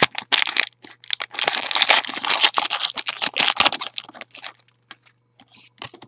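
Foil wrapper of a Panini Adrenalyn XL trading-card booster pack crinkling and crackling loudly as it is opened and crumpled by hand, then only a few faint rustles and clicks after about four seconds as the cards are handled.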